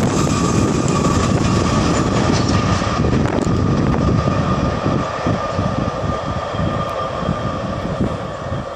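Freight train of flat wagons rolling away down the line: a steady rumble of wheels on rail with a high steady ringing tone that slowly fades. Gusty wind noise on the microphone grows in the later seconds.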